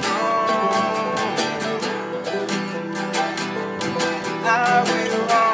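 Banjo, mandolin and acoustic guitar playing a bluegrass tune together, picked in a steady rhythm.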